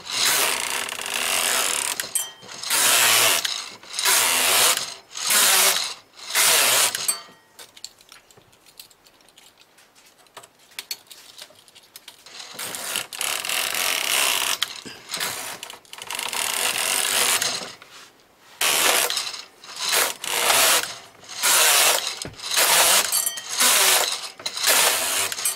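Brother knitting machine carriage pushed back and forth across the needle bed, knitting row after row: a series of mechanical passes about a second each. The passes stop for about five seconds in the middle, then resume at a quicker pace.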